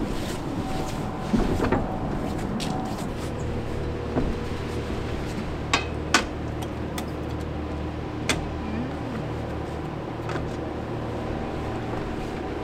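A few sharp knocks and clacks of camping gear being set down on a table, a stack of dishes and a lantern, the two loudest close together about six seconds in, over a steady low hum.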